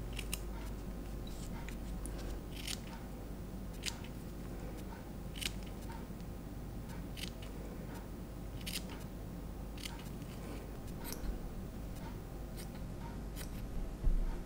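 Small scissors snipping through fluffy fibre fur, about a dozen short sharp snips at an irregular pace of roughly one a second, over a low steady hum. A brief low bump near the end.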